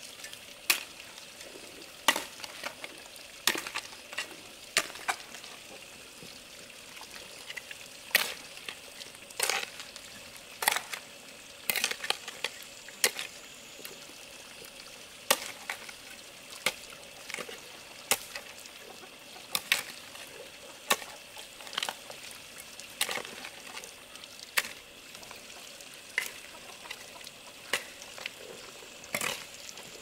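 Sharp knocks repeating about once every second and a third, with a couple of short pauses, over a steady hiss.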